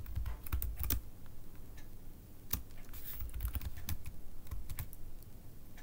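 Typing on a computer keyboard: scattered key clicks at an uneven pace, with soft low thumps of the keys bottoming out.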